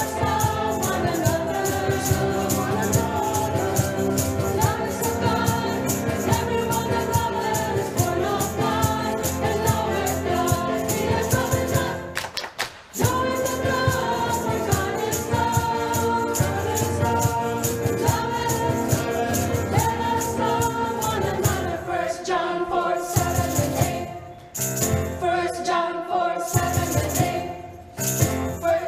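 Church choir singing a hymn with accompaniment, with a rattle-like percussion keeping a steady beat. The music drops out briefly about twelve seconds in and thins out twice near the end.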